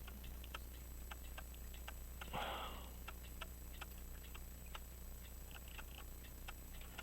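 Light, sharp clicking, several irregular clicks a second, with one short breathy rush of noise a little over two seconds in.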